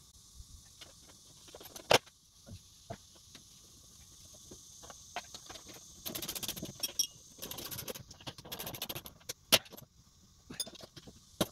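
Metal parts knocking and clinking on a steel mower deck as a spindle and pulleys are fitted, with two sharp knocks about two seconds in and a little before the end. Around the middle come two stretches of rapid clicking from a ratchet wrench tightening the spindle hardware.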